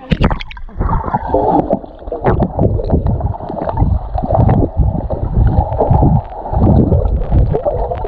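Water splashing and sloshing against the microphone in irregular surges, muffled and dull, with little high sound.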